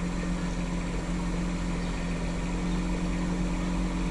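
Bobcat E10 mini excavator's diesel engine running steadily at an even pitch.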